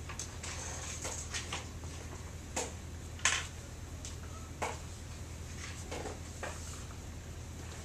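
Classroom room tone: a steady low hum with scattered small knocks, clicks and rustles, the loudest about three seconds in.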